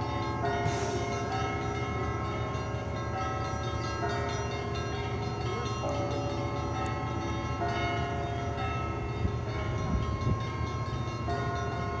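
Orthodox church bells ringing: several bells of different pitch struck in turn, a new stroke every second or two, their tones ringing on and overlapping.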